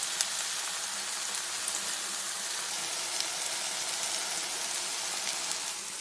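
Tofu and vegetable mixture frying in a pan, a steady sizzle with small pops.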